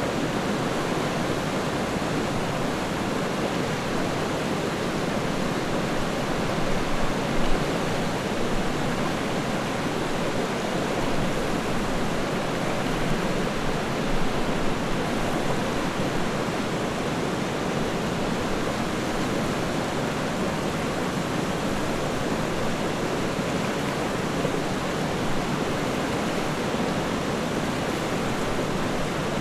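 River water rushing and babbling steadily over rocks, an even full rush with small swells now and then.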